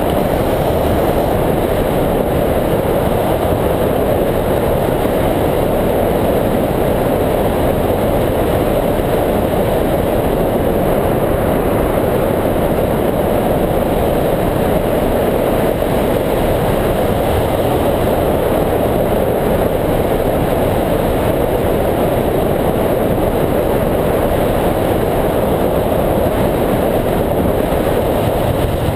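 Steady rush of wind buffeting the microphone of a camera mounted on a hang glider's wing in flight.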